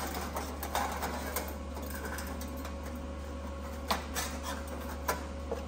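Scattered clicks and light metallic knocks of steel pieces and tools being handled on a steel welding table, the sharpest about four seconds in and just after five seconds, over a steady low hum.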